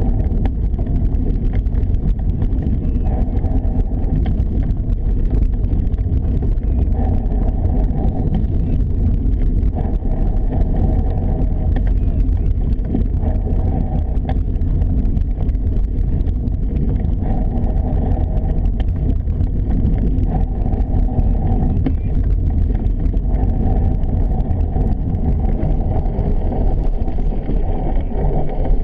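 Wind buffeting an action camera's microphone as it is carried along by bicycle, with the steady rattle of the bike over a rough towpath.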